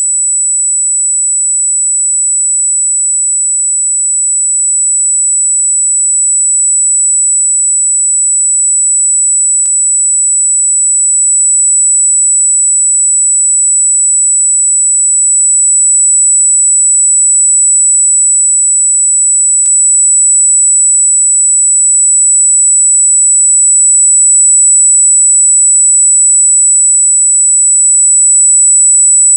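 Continuous high-pitched electronic sine tone near 8 kHz, held at one steady pitch, with a faint click about every ten seconds.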